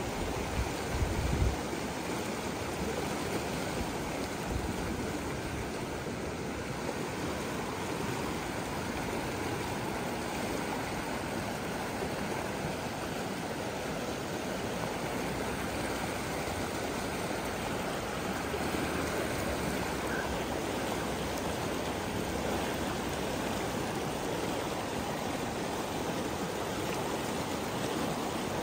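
Shallow mountain river rushing steadily over rocks and small rapids, with a few low thumps in the first second or so.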